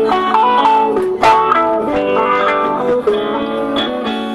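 Live band music led by a hollow-body electric guitar, playing a melodic line with sliding notes over held chords.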